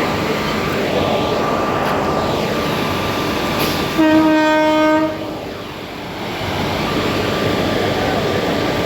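Train running, with a single horn blast lasting about a second, about four seconds in.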